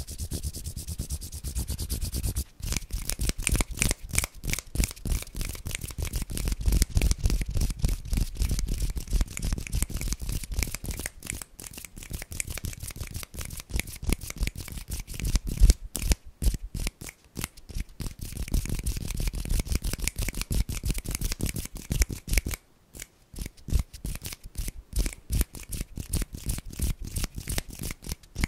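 Hands and fingertips rubbing and fluttering right at a microphone: a fast, dry, scratchy stream of skin-on-skin strokes, with a few short pauses.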